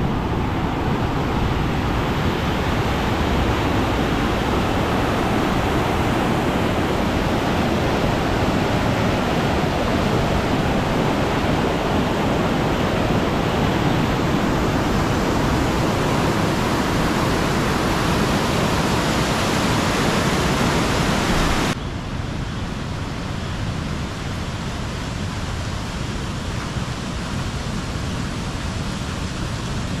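Steady rain falling, a continuous even hiss, which drops abruptly quieter about 22 seconds in.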